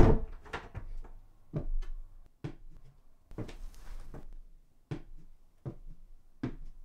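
A dozen or so scattered, irregular knocks and thumps with quiet between them, the first and loudest right at the start.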